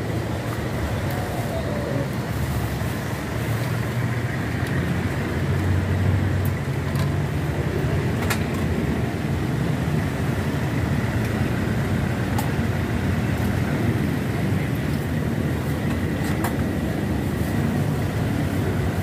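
Steady low rumble of the street-stall surroundings, like road traffic and a running gas burner, with a few sharp metallic clicks of strainer baskets and utensils against the stainless soup pot.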